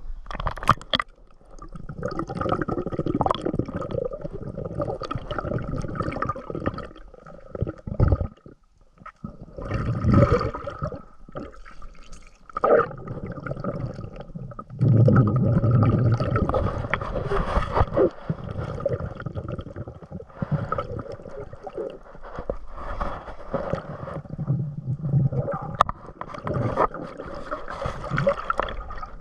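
Water sloshing and gurgling around a camera held at and under the surface, heard muffled while it is submerged, coming and going in irregular surges.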